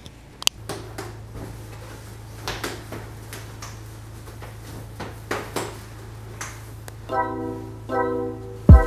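Latex balloons rubbing and squeaking in short, scattered bursts as a cluster of balloons is handled and pressed onto a balloon garland. Background music comes in about seven seconds in.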